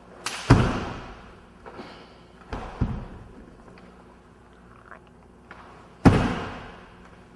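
Three loud, sharp snaps and thuds of a karate kata: the gi cracking and bare feet stamping on a wooden floor, each ringing out in the hall's echo. One comes right at the start, one about two and a half seconds in, and the loudest about six seconds in.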